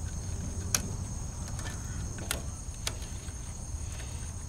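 About three sharp clicks as wire connectors are handled and unplugged from a pellet stove's control board, over a steady high-pitched insect trill and a low background hum.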